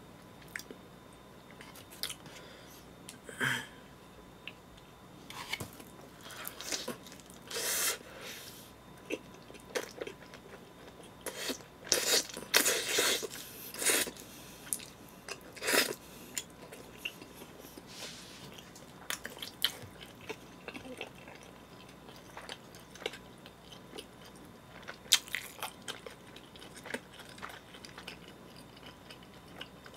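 Close-up mouth sounds of a person biting into and chewing cheesy Chicago-style pizza: irregular wet smacks and clicks, busiest around the middle.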